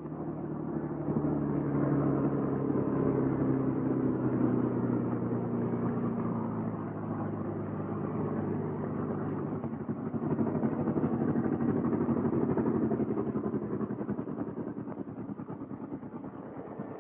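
Bell P-39 Airacobra's Allison V-12 engine running at low taxiing throttle, a steady drone that swells and fades twice as the fighter taxies past.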